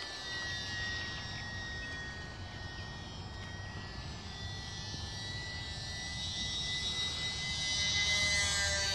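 Small electric RC model plane (E-flite Champ S+) flying overhead, its motor and propeller making a steady high whine that wavers slightly in pitch. The whine grows louder as the plane passes closer, about eight seconds in.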